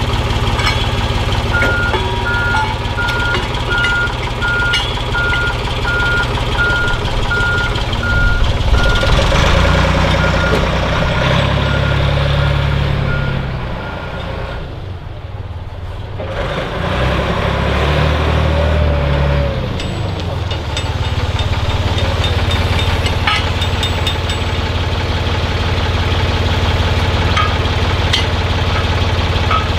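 Engine of a crane-carrying heavy machine running steadily, with a backup alarm beeping at an even pace for roughly the first thirteen seconds. The engine note shifts in the middle, and there are a few light metal clanks.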